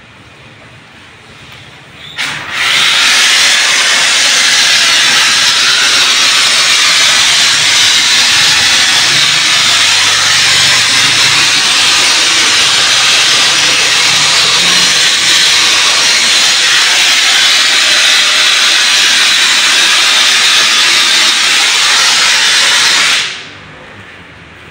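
High-pressure washer jet spraying onto a car's air-conditioning condenser: a steady, loud hiss that starts about two seconds in and cuts off shortly before the end.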